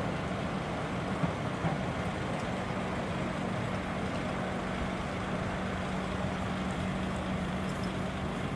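Steady vehicle noise: an even rumble with a constant low hum running underneath, no change in pitch or loudness.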